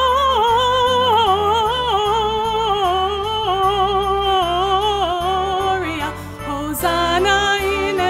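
A woman singing long, high held notes with a wide vibrato over a sustained instrumental accompaniment. She breaks off briefly about six seconds in, then starts another held note.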